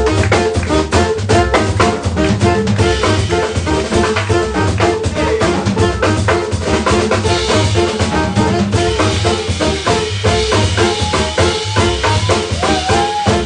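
Live jazz combo playing, with a busy drum kit prominent over the bass and band. A wavering saxophone line stands out over the last few seconds.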